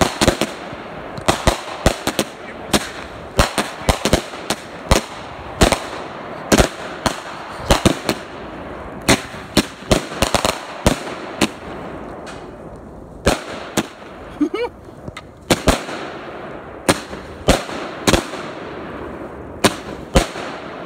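Two consumer firework cakes, a Rebellion 25-shot and an Emerald City 16-shot, firing together: an irregular run of sharp bangs, about one to two a second, as the shells burst, over a steady hiss, with a brief lull about halfway through.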